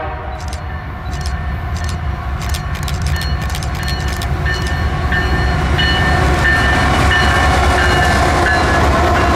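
CSX freight train passing close by: a low diesel and wheel rumble growing steadily louder, with sharp clicks over the first few seconds and faint high tones ringing over it from about three seconds in.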